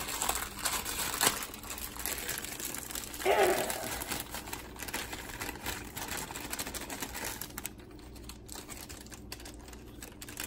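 Clear plastic bag of dry cake mix crinkling as it is handled and shaken out over a stainless steel mixer bowl, in a run of irregular small crackles.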